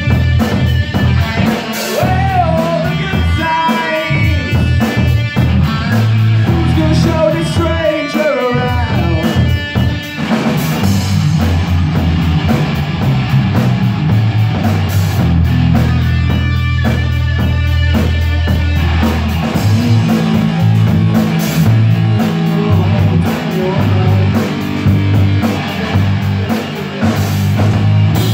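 Small rock band playing live: electric guitar, bass guitar and drum kit, with a singer's voice over roughly the first ten seconds, then the instruments carry on.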